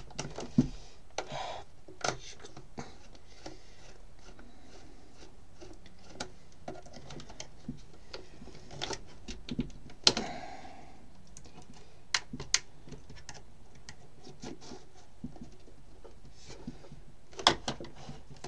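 Irregular hard-plastic clicks, taps and scrapes from a Dyson Airblade's fan housing as it is handled and pried at to get it open, with the loudest knocks about ten seconds in, twice around twelve seconds, and near the end.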